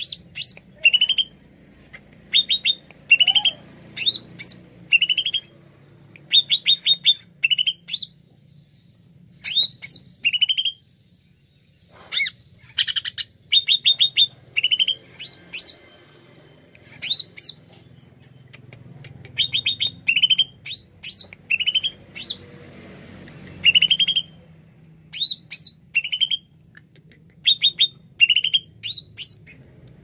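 Caged greater green leafbird (cucak ijo) in full song, repeating quick bursts of sharp chirps and rising whistled notes, with short pauses between runs.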